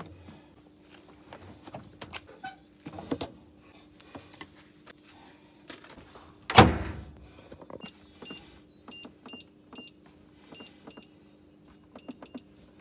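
Top-loading washing machine: clothes rustle and small knocks as laundry goes into the drum, then the lid shuts with one loud thud about halfway through. After that comes a run of short high electronic beeps as buttons on the machine's control panel are pressed to set the wash, over a faint steady hum.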